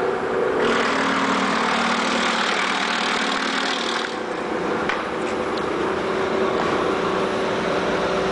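Electric spring onion cutting machine running with a steady motor hum. From about one second in to about four seconds in, a louder rushing, chattering noise comes over the hum while green onion is fed through and chopped, then stops suddenly. The hum carries on with a couple of light clicks.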